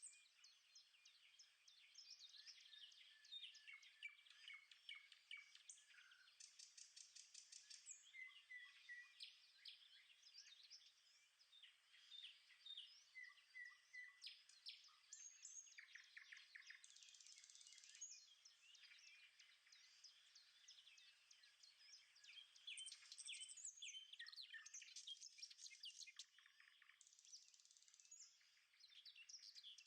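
Several wild birds chirping and singing faintly, with many short overlapping calls, whistles and trills.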